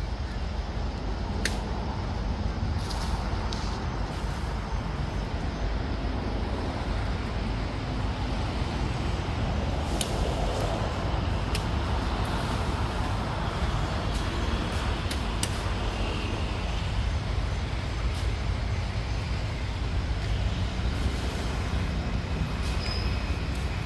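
Steady low rumble of outdoor background noise, with a few short sharp clicks scattered through it.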